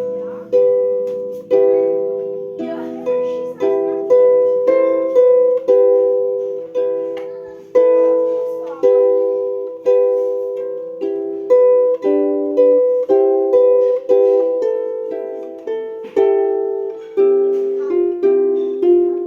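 Slow improvised melody on a plucked string instrument in a small room: single notes and two-note chords, each struck and left to ring and fade before the next, about one or two a second.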